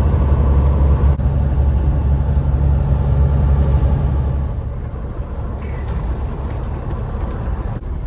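Cabover semi truck's diesel engine drone and road noise heard inside the cab while cruising on the highway; the low drone eases off about halfway through.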